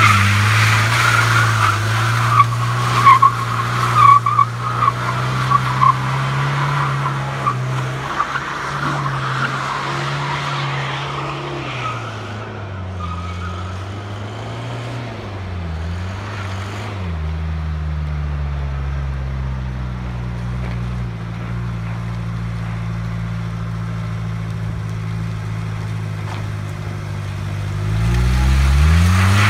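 Mercedes 240D's four-cylinder diesel engine driven hard while the tyres squeal through a slide, the squeal loud at first and dying away after about twelve seconds. The engine then carries on with its revs dipping and rising, climbing again near the end.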